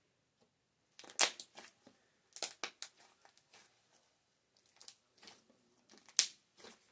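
Slime being squeezed and worked by hand, giving sharp little pops and crackles in four short bursts.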